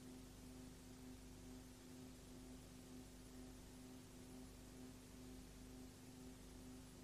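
Near silence: a faint steady hum with hiss, unchanging throughout.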